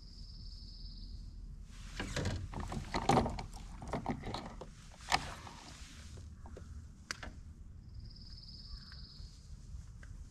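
A few seconds of irregular knocking and rustling, with a short, steady high-pitched buzz once near the start and again near the end.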